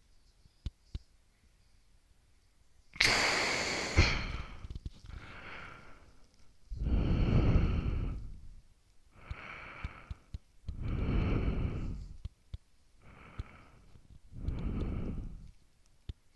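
A person's loud sigh close to the microphone about three seconds in, then slow, heavy breathing: inhales and exhales every few seconds, the exhales blowing on the microphone. A few faint clicks at the start.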